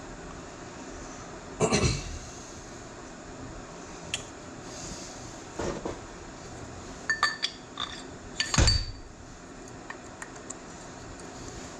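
Steel parts of a tractor power-steering valve knocking and clinking as they are handled on a workbench: half a dozen separate knocks, some with a short metallic ring, the loudest about two-thirds of the way through.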